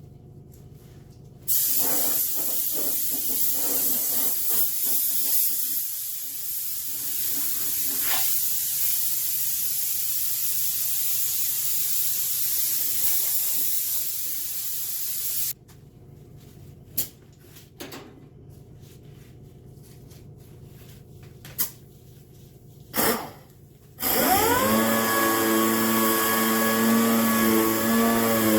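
Dual-action (DA) sander scuffing a truck's painted body panels for paint prep: it runs with a steady hiss for about fourteen seconds and stops, a few knocks and clicks follow, and near the end it starts up again, its pitch rising and then holding steady.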